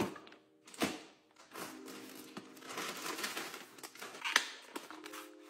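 Packaging being unpacked by hand: a plastic mailer bag and cardboard boxes rustling and crinkling, with a few short knocks, the loudest near the end.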